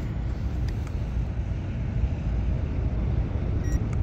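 Steady low outdoor rumble with a short electronic beep near the end from a handheld infrared thermometer taking a reading.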